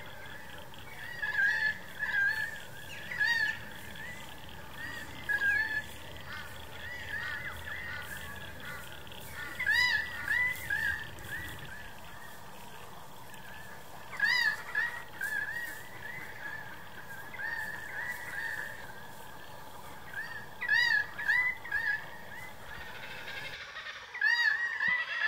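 Birds calling: short clusters of several quick calls, repeating every few seconds over a faint steady background.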